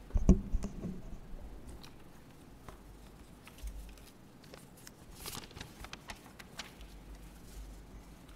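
A sharp thump about a quarter second in, then scattered light clicks and rustling, like handling noise from someone moving or handling things nearby.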